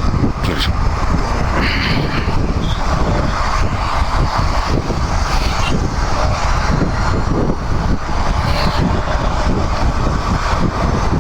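Royal Enfield Himalayan 411 single-cylinder motorcycle riding in moving traffic, its engine running under heavy wind buffeting on the microphone.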